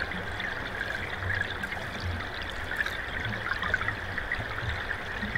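Thaw sonification of river data played over loudspeakers: a steady ambience of a river flowing, with occasional soft, low timpani-like thuds.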